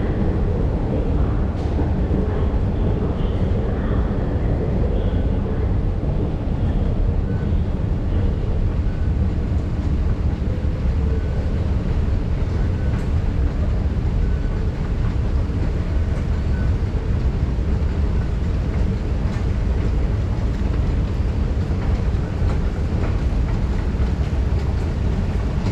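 Long station escalator running: a steady low mechanical rumble from its moving steps and drive, with faint short beeps now and then.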